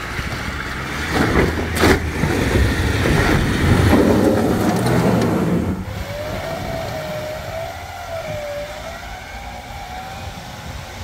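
Four-wheel-drive vehicle engine revving under load, with two sharp knocks about one and two seconds in. The engine drops back at about six seconds, and a wavering tone runs on for a few seconds after.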